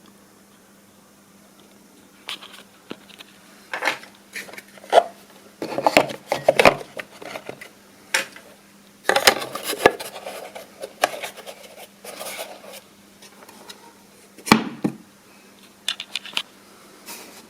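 Servo-driven useless box clicking and clattering: a run of irregular sharp clicks and short rattling bursts from its lid and arm, starting about two seconds in, over a faint steady electrical hum.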